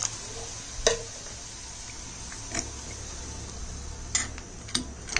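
Steel ladle clinking against a metal pot of pork curry as it is stirred, about five sharp clinks spread out over a few seconds.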